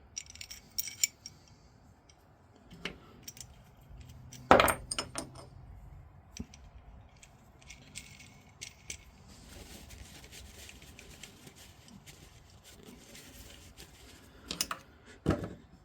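Small metal parts clinking and tapping as they are handled on a workbench: scattered light clicks, one louder knock about four and a half seconds in, and a couple more knocks near the end.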